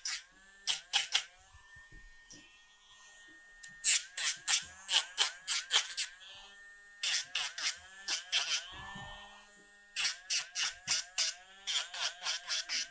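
Handheld rotary dog-nail grinder running with a steady whine and pressed to a dog's nails in quick strokes. Each touch briefly drags the pitch down, and the strokes come in clusters of several with short pauses between. The grinding smooths and shapes freshly clipped nails, taking off the sharp edges.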